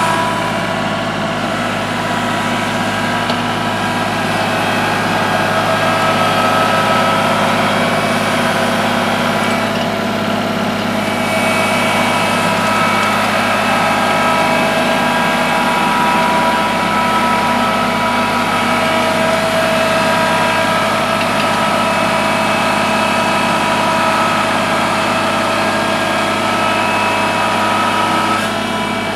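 Kubota L3301 compact tractor's three-cylinder diesel engine running steadily under load as it drags a heavy log on a strap, easing off slightly near the end.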